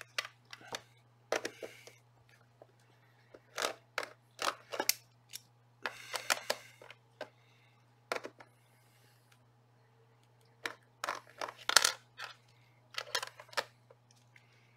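Irregular small metallic clicks, taps and scrapes in scattered groups: a loose screwdriver bit being turned in a deep, recessed screw hole in the plastic back case of a Sangean ATS-909X2 radio, slipping and catching on the screw.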